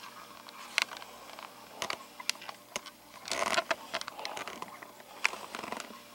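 Handling noise: scattered light clicks and knocks, with a brief rustling scrape about three and a half seconds in.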